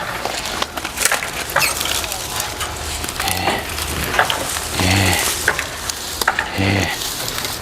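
Small branches and twigs cracking and snapping irregularly as they are broken and handled, with leaves rustling.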